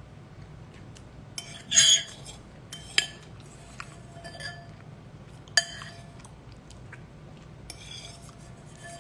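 Kitchenware and cutlery clinking and clattering: a louder clatter about two seconds in, sharp single clinks about three and five and a half seconds in, and a softer rattle near the end, each leaving a brief ring.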